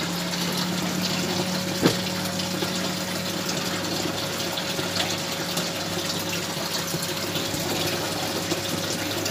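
Aquarium water pump running: a steady rush of splashing water with a low hum under it. A single knock about two seconds in.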